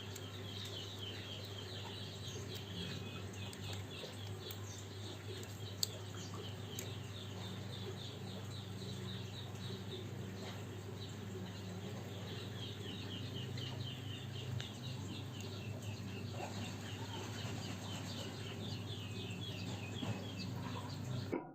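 Small birds chirping in quick repeated trains over a steady low hum, in two spells separated by a quieter stretch.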